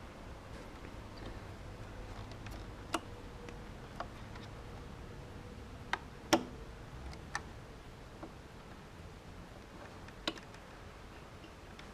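Scattered light clicks and knocks of small parts and tools being handled during close hand work, the loudest about six seconds in, over a faint low hum.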